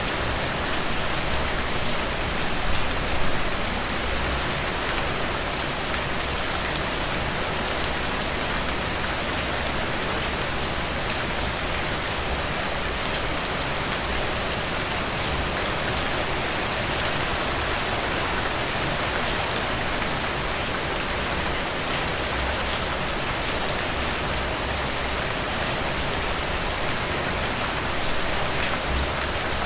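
Steady tropical rain falling on leaves: a dense, even hiss of rainfall dotted with the ticks of single drops.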